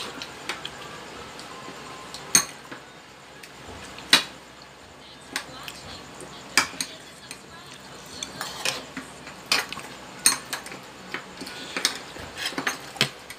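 Metal spoons and forks clinking and scraping against plates during a meal: irregular sharp clinks, a few much louder than the rest, with a busier run of them near the end.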